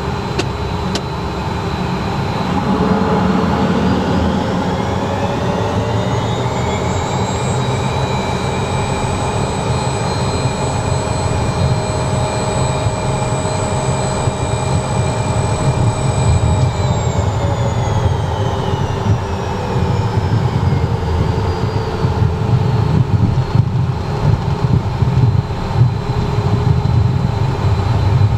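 Cessna Citation M2's twin Williams FJ44 turbofans spooling up to takeoff thrust: a whine that rises over several seconds and then holds steady over a low rumble. About halfway through, the whine falls away again while the rumble continues.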